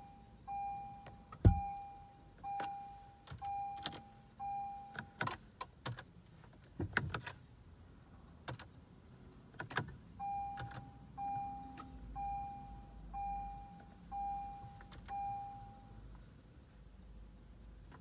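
A 2015 Acura TLX's warning chime beeping in two runs of about six evenly spaced beeps, roughly one a second, with scattered sharp clicks in between and no engine cranking: the car is failing to crank or start.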